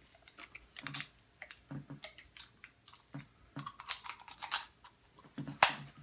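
Small items being handled and set down on a wooden table: irregular light clicks and rustles, with one louder clack near the end.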